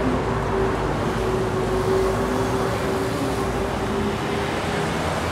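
City street traffic: vehicles running along the road in a steady wash of noise, with a low engine hum that fades out near the end.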